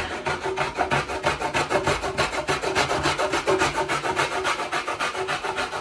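Cheese being grated by hand on a grater: fast, even scraping strokes, about seven a second.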